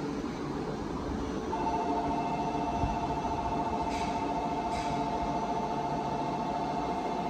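Station platform's electronic departure bell ringing as a steady, slightly pulsing two-note tone, starting about a second and a half in over the platform hum; it signals that the Shinkansen is about to leave. Two faint clicks come through near the middle.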